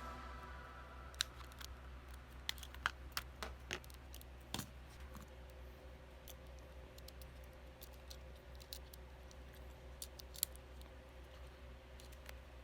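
Scattered sharp clicks and light taps, about a dozen at irregular intervals, over a low steady hum; a tune dies away in the first second.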